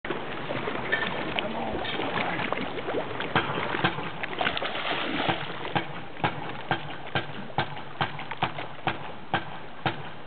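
A hooked bass thrashing and splashing at the water's surface beside the boat as it is reeled in, against a steady wash of noise. From about halfway through, sharp ticks repeat about twice a second.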